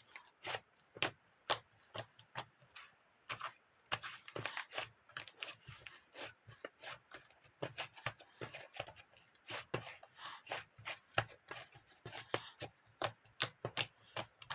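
Kitchen utensils clicking, tapping and scraping in quick irregular strokes while strawberry shaved ice is prepared, with a short run of scraping about four seconds in.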